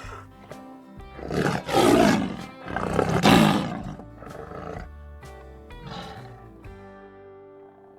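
Lion roaring: two loud roars about a second and a half apart, then quieter grunts.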